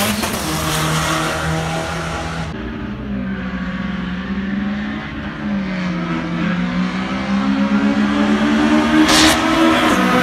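Drag-race car engines: a car running hard down the strip, then, after an abrupt change, engines idling and revving at the start line, their pitch dipping and rising. A short burst of noise about nine seconds in.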